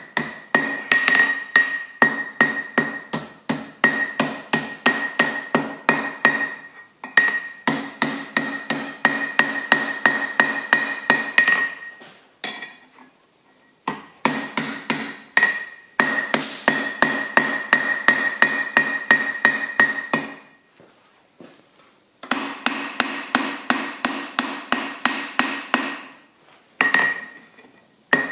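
Hand hammer striking hot steel on the horn of an anvil, bending the bar round into a ring: quick blows at about four a second in runs, with short pauses between them. Each blow leaves the anvil ringing with a steady high tone.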